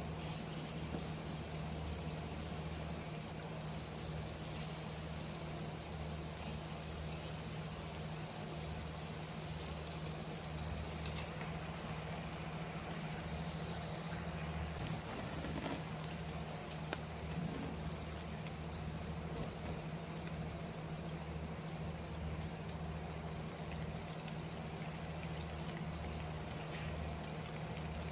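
Twisted glutinous-rice doughnuts deep-frying in hot oil at 180°C: a steady fizzing sizzle of bubbling oil, with a steady low hum underneath.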